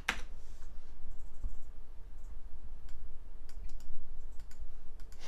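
Computer keyboard keys being typed one at a time: a sharp click at the start, then scattered single keystrokes, over a faint steady hum.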